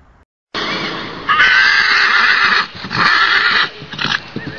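Horse whinnying: a series of loud neighs with a wavering pitch, the longest starting about a second in, then a shorter one near three seconds and a brief one just after four seconds.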